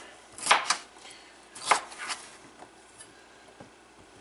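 Chef's knife chopping red potatoes on a plastic cutting board: four sharp knife strikes in the first two seconds or so, then a few faint taps.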